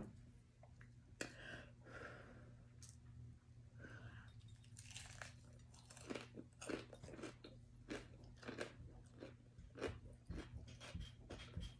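A person chewing well-done fried chicken in wheat bread: faint crunching of the crisp crust with small wet mouth sounds, growing busier about halfway through.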